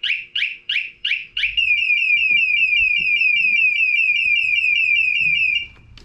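Scorpio SRX-900 motorcycle alarm's built-in siren sounding, very loud: a pulsing tone about three times a second that switches about a second and a half in to a fast warble of about seven chirps a second, then cuts off near the end.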